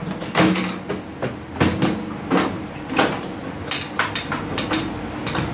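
Irregular clicks, knocks and clatter of hands and tools on plastic and metal parts as a microwave's front panel is taken apart.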